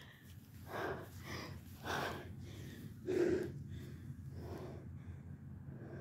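A person breathing hard, with gasping breaths coming every second or so and one short voiced gasp about three seconds in.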